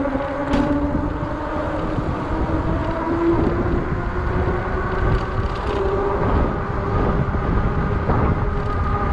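A small motor humming steadily, its pitch creeping slowly upward, over a low wind rumble on the microphone.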